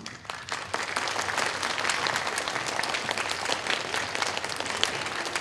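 Audience applauding, starting abruptly and building to full strength within about a second.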